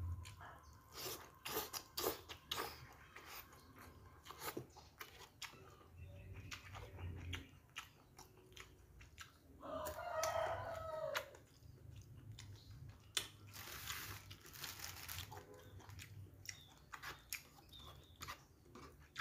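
Close-up eating sounds: chewing, crunching and lip smacks as fried fish and noodles are eaten by hand, with wet clicks from the fingers and tray. About ten seconds in, a short pitched call lasting about a second and a half rises above the chewing.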